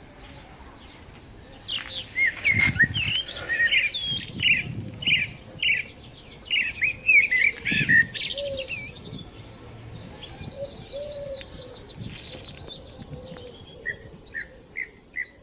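Small songbirds chirping and singing in quick, varied notes and trills, with a couple of low thumps. Near the end one bird repeats a short chirp at an even pace, a few times a second.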